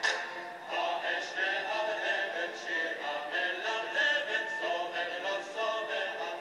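Music: several voices singing together in chorus.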